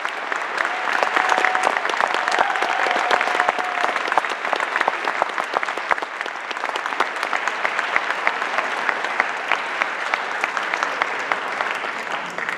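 Audience applauding in a dense, steady clatter of clapping at the close of an a cappella performance.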